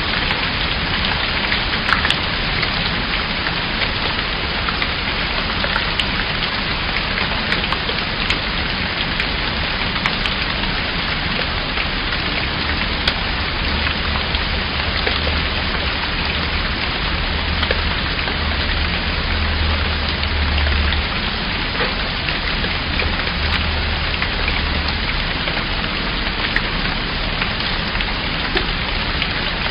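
Steady rain falling on a surface: an even hiss with individual drops ticking through it. A low rumble comes in for several seconds in the middle.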